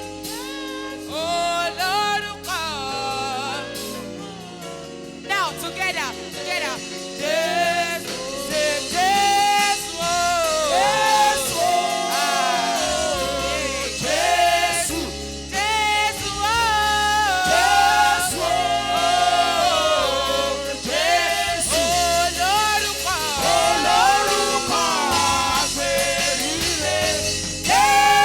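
Gospel singing by a church choir, voices carrying a melody over a band with sustained bass notes.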